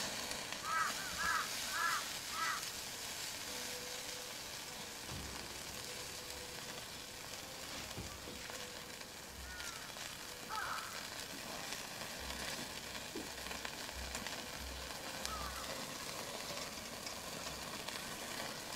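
Duck meat and green onions sizzling steadily in a hot pan. A few short, high chirps sound near the start, with single ones later.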